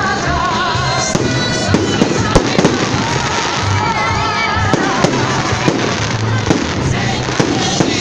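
Festive fireworks salute: repeated sharp bangs of bursting shells at irregular intervals, several a second at times, over music.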